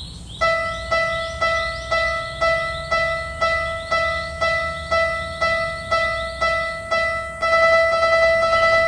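Railroad crossing alarm bell ringing in even strokes about twice a second, each stroke a clear ringing tone that dies away, with a higher chirp on each one. About seven and a half seconds in, the strokes give way to one continuous steady tone.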